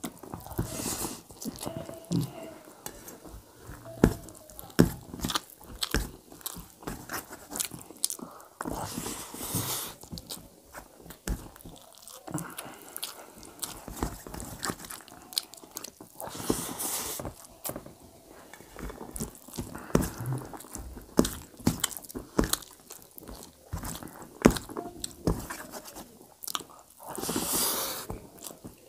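Close-miked chewing and wet mouth smacks of a person eating rice with dum aloo potato curry by hand, full of many short, sharp clicks.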